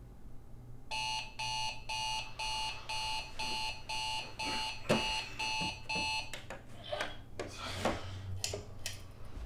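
Digital bedside alarm clock going off: high-pitched electronic beeps about twice a second, starting about a second in and stopping about six seconds in. After it stops come rustling and a few light clicks.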